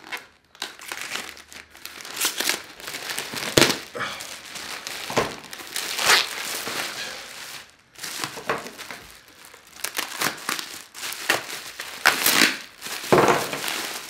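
Plastic packaging crinkled and torn open by hand: an irregular run of rustling and crackling with sharp rips, pausing briefly about eight seconds in.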